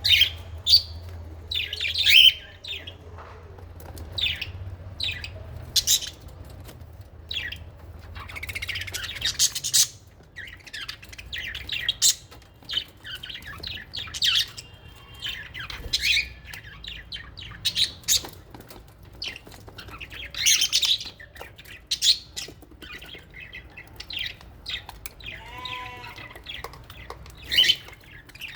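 A flock of lovebirds and budgerigars calling in an aviary: many short, shrill chirps and squawks that come irregularly and overlap, without a break.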